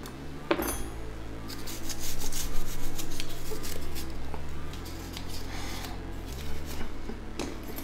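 A small stiff-bristled brush scrubbing a plastic phone housing in a run of quick back-and-forth strokes, after a single knock about half a second in.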